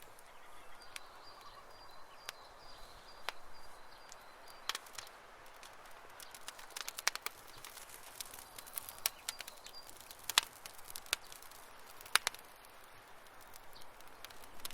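Campfire wood crackling, with irregular sharp pops, a few of them loud, over a soft hiss. A faint high trill sounds in the background from about a second in.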